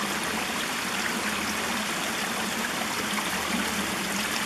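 Shallow rocky stream running steadily, a continuous babble of water over stones.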